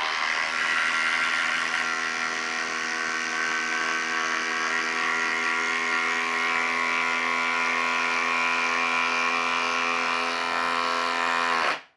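FLEX 24V brushless impact driver hammering a long lag screw into a wooden log through a socket adapter: a loud, steady rapid-fire impacting rattle under load that cuts off abruptly near the end as the screw seats.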